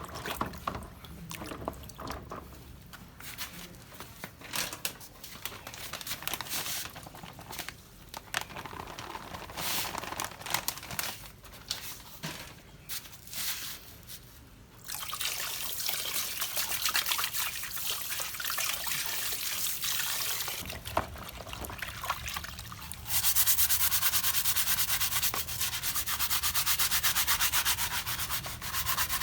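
Sanding and rubbing on a part: short, uneven scraping strokes at first, then steadier sanding that grows louder and more even about 23 seconds in.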